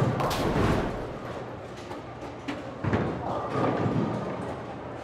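Bowling alley noise: a sudden loud crash about three seconds in that rings on for over a second, over a steady background of people talking.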